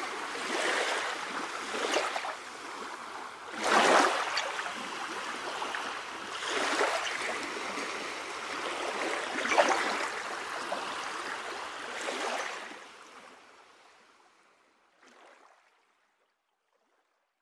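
Sea waves washing in, each wash swelling and falling back every two to three seconds, then fading away; one last faint wash comes near the end.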